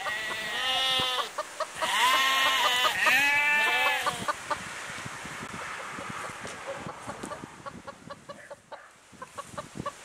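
Several bleating animal calls, each rising and falling in pitch, in the first four seconds, then fainter scattered clicking.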